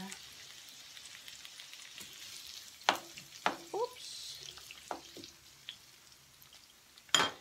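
Sliced onion and green bell pepper sizzling in a hot square grill pan, with a handful of sharp clicks as tongs turn them against the pan, the loudest near the end.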